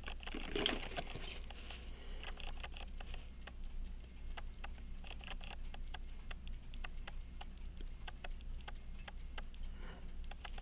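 Many small, sharp ticks and clicks from an Elgin pocket watch movement being worked on: light metal clicks from handling it with a key and tweezers, mixed with the ticking of the running movement.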